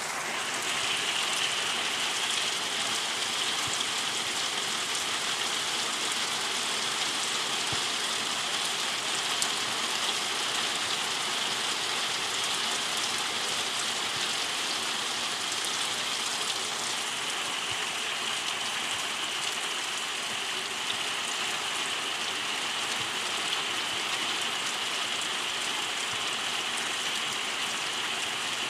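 Heavy rain falling steadily: an even, unbroken hiss of rainfall.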